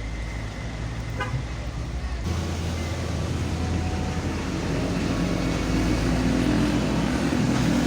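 Motor vehicle engines running in a queue of traffic, a steady low hum. The tone changes abruptly about two seconds in, and the sound grows slightly louder toward the end.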